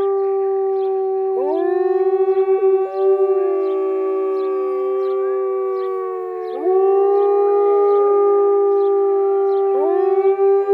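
Gray wolves howling in chorus: several long, overlapping howls held at steady pitches, with new voices sliding up into the chorus about a second and a half, six and a half, and ten seconds in.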